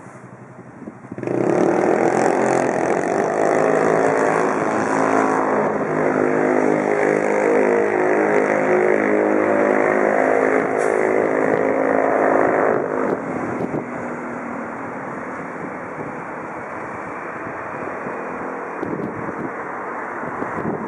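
Isuzu Erga CNG city bus engine running loud close by as the bus comes in and stands at the stop, a steady note with several tones setting in suddenly about a second in. About thirteen seconds in it drops to quieter, even traffic noise.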